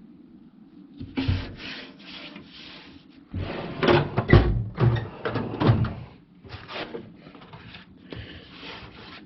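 Steel tool chest being handled: drawers sliding in and out with rubbing and scraping, and a few clunks. The loudest clunks come about four to six seconds in.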